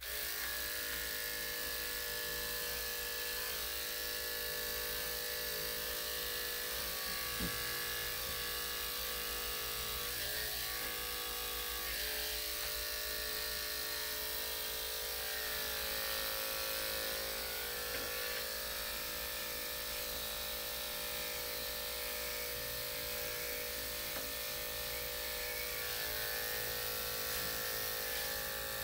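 Corded electric dog-grooming clippers switch on and run with a steady hum while trimming a small dog's coat.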